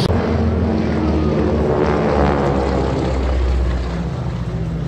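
North American Harvard trainers' Pratt & Whitney R-1340 radial engines and propellers droning steadily overhead, easing off a little near the end.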